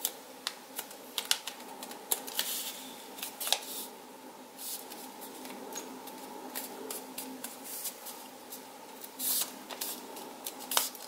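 Sheet of A5 paper being folded and creased by hand into a paper airplane wing: scattered crinkles, rustles and sharp creasing clicks, over a faint steady hum.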